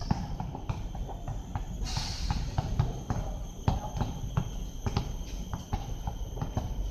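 Players' sneakers thudding on an outdoor asphalt basketball court, mixed with a basketball bouncing: irregular sharp thuds, several a second.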